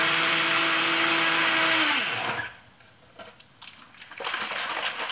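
Duronic personal bullet blender's motor running at full speed, mixing protein powder into water; it switches off about two seconds in and spins down with a short falling hum. A few light knocks follow as the blending bottle is lifted off the motor base.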